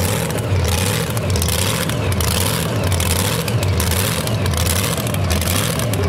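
Modified two-wheel-drive pulling truck's engine idling with a lumpy, loping beat that swells and fades a little under once a second, as it waits hooked to the sled.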